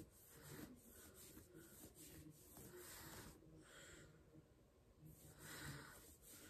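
Near silence: room tone with a few faint, irregular soft rustles.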